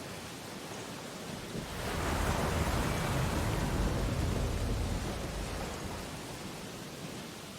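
Ocean surf: a wave breaks about two seconds in with a deep rumbling rush, then washes out and fades back to a steady hiss of water.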